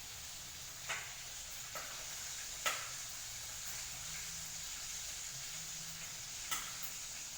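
Food sizzling in a pan with a steady hiss while a cooking utensil stirs. The utensil strikes the pan in four sharp clicks, the loudest about two and a half seconds in.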